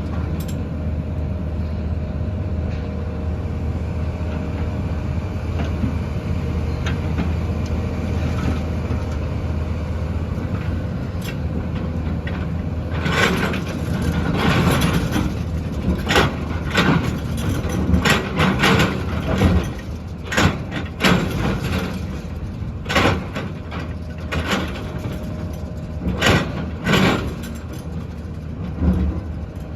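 JCB 3DX backhoe loader's diesel engine running steadily. From a little before halfway, a string of irregular clanks and knocks from the machine's digging and loading work sits over the engine.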